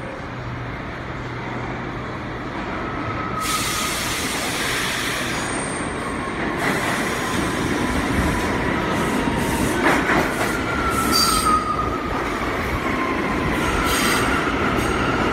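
New York City subway train pulling into the station, its running noise over the rails growing louder, with thin high wheel squeals from about ten seconds in as the cars pass close. A steady low hum from the train standing on the other track lies under it at first.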